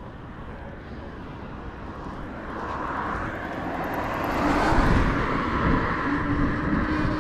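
Rumbling road and traffic noise while riding in the street. It swells from about two seconds in to a peak around five seconds, and a steady low hum joins it partway through.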